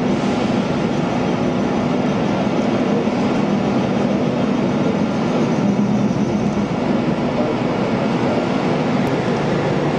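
Okuma CNC machine running while machining a crankshaft: a steady, loud mechanical noise with a constant low hum underneath.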